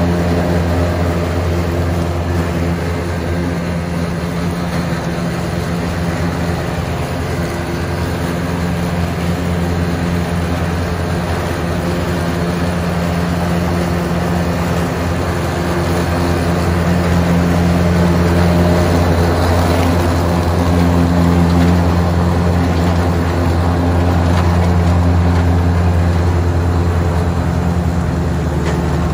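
John Deere 2025R compact tractor's three-cylinder diesel engine running steadily under load, driving a Frontier GM1072 finish mower through the PTO as it cuts grass.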